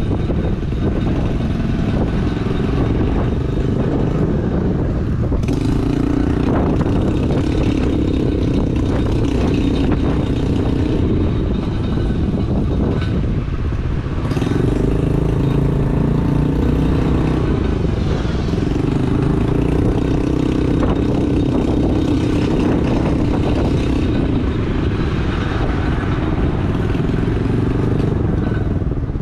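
A 2022 Honda Navi's small single-cylinder engine running under way, heard from the handlebars. Its note swells and rises in pitch three times as the throttle is opened, easing back in between, over steady road noise.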